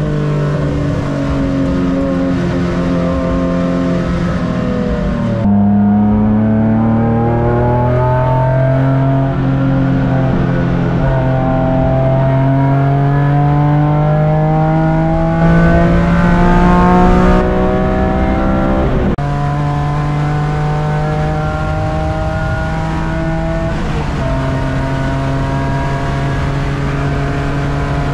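BMW E46 M3 wagon race car's engine heard from inside the car on track, pulling hard with its pitch climbing steadily. About five seconds in the pitch drops suddenly as it shifts up, then it climbs again through a long pull. Near two-thirds of the way through the pitch drops sharply and then holds steady.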